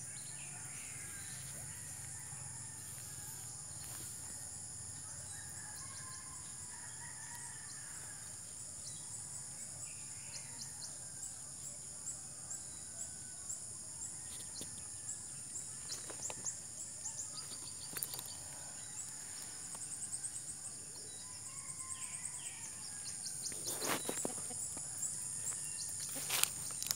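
Rural yard ambience: faint rooster crows several times over a steady high-pitched insect drone, with a few sharp clicks near the end.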